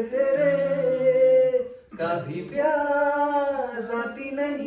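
A man singing a Hindi song in long held, wavering notes: one phrase, a short breath about two seconds in, then the next phrase.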